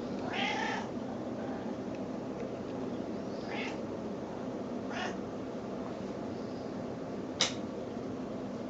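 Snowshoe cat giving short, baby-like meows, four in all, the last a short sharp one and the loudest. These are her begging calls, made when she expects to be fed.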